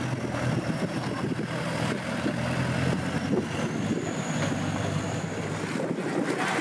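Engine of an off-road 4x4 running steadily at an even pitch, changing character near the end.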